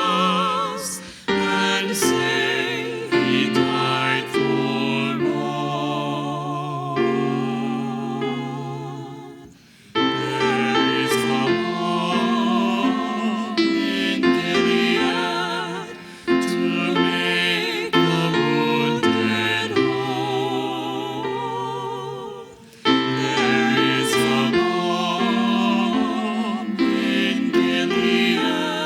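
Church music: a singing voice with strong vibrato over a held, steady accompaniment, in long phrases that drop away briefly twice before starting again.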